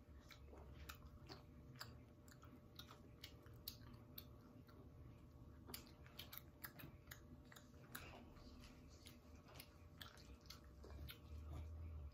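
A child chewing and biting into a piece of sauced chicken: faint, irregular mouth clicks and smacks, several a second, close to the microphone.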